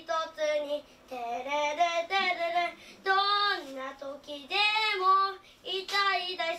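A child singing a Japanese song unaccompanied, in short phrases of held notes with brief breaks between them.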